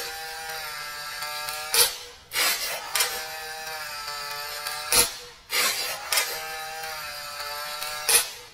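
Intro sound effect: a steady mechanical whir with a clear pitch, broken off by a sharp click and restarted twice, about every three seconds.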